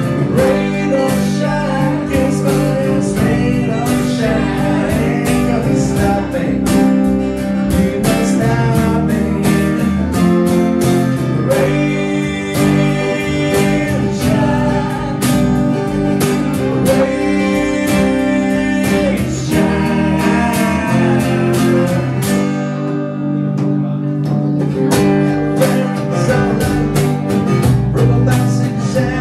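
A live acoustic band playing a song: strummed acoustic guitar, double bass and percussion keeping a steady beat, with a voice singing. The band thins briefly about three quarters of the way through, then comes back in.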